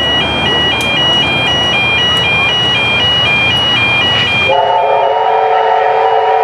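A two-note electronic warning tone alternates high and low about three times a second over loud rumbling railway noise, like a level-crossing alarm as a train passes. About four and a half seconds in this cuts to a steady train whistle sounding a chord of several notes.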